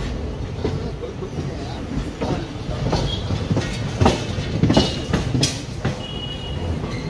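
Passenger train running, heard from an open coach doorway: a steady low rumble with irregular knocks as the wheels pass over rail joints.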